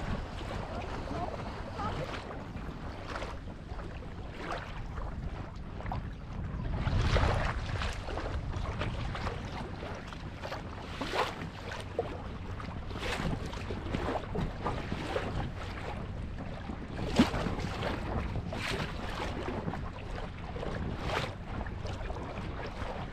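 Lake water splashing and slapping against the hull of a moving boat, in irregular splashes over a steady low rumble. There is a louder surge of water about seven seconds in and a sharp slap about seventeen seconds in.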